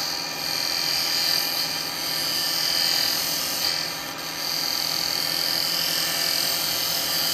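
Wood lathe running while a carbide turning tool cuts the spinning bowl blank, a steady cutting noise with a brief dip about four seconds in.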